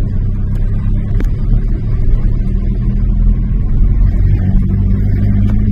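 A car's engine running steadily: a low, even rumble with a few faint clicks.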